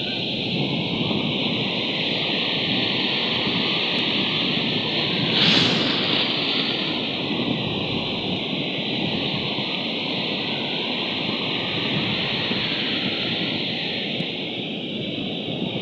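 Steady outdoor rushing noise, like wind or surf, with one brief louder swell about five and a half seconds in.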